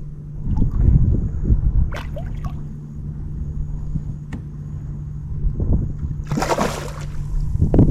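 Water splashing and sloshing beside a small boat, with one loud splash about six and a half seconds in. Wind rumbles on the microphone and a steady low hum runs underneath.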